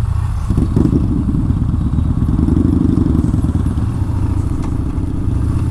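Yamaha Bolt XV950R air-cooled V-twin engine running under way on the road, getting louder about half a second in as it pulls.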